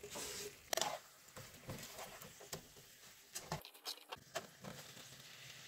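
Sliced onion rings tumbling off a cutting board into a frying pan of pork steak in sauce, a short soft rustle with a tap, then faint scattered clicks and taps of tongs against the pan as the meat is turned.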